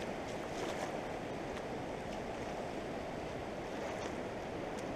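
Steady rush of a fast-flowing, swollen river running past the bank.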